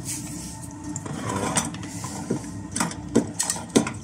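Clicks and knocks of metal and plastic as the pump and fuel line of an MSR liquid-fuel stove are fitted to its aluminium fuel bottle, a handful of sharp clicks in the second half, over a steady background hum.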